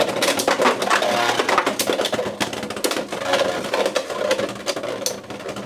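Beyblade X spinning tops, one of them Driger Slash, battling in a plastic stadium. They clash and scrape, making a dense, irregular run of sharp clicks and knocks over a spinning rattle, which eases off slightly near the end.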